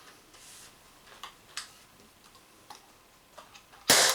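A few faint clicks of handling, then a single sharp shot from an Umarex TPX50 CO2 .50-calibre pistol firing a steel ball near the end.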